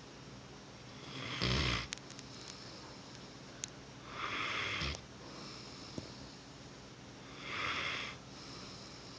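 Rottweiler snoring while asleep: three breathy snores about three seconds apart.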